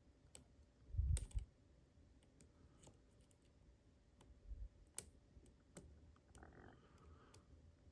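Faint, scattered small clicks and taps of a lock pick and tensioner working the telescoping pins inside a Mul-T-Lock Junior's keyway, with a soft low thump about a second in.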